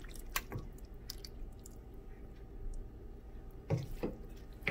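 Sautéed yellow squash and peppers being scooped from a stainless steel pot: soft wet squishing, with a couple of light clinks of the utensil against the pot about half a second in and again near the end.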